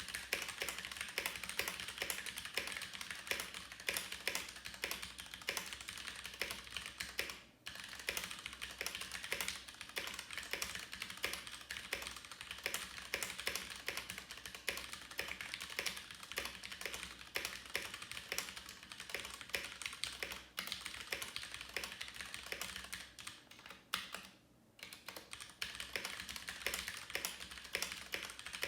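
Continuous typing on a mechanical keyboard: rapid, dense keystroke clicks with a few short pauses.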